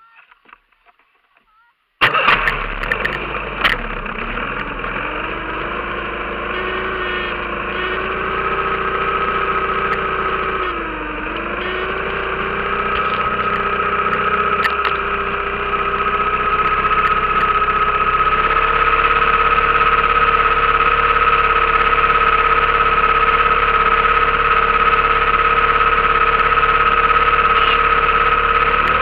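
15 hp outboard motor catching about two seconds in, then running steadily, its pitch dipping briefly near the middle and then rising a little.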